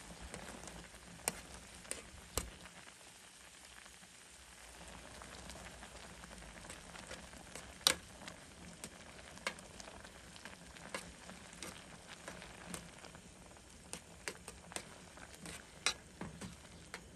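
Instant ramen cooking in a pot over a burner: a steady hiss with scattered light clicks and ticks.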